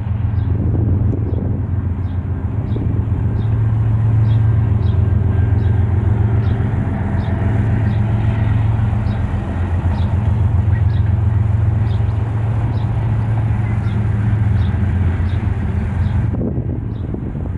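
Diesel freight locomotives running close by with a steady, loud low engine throb, and faint high ticks repeating about twice a second over it.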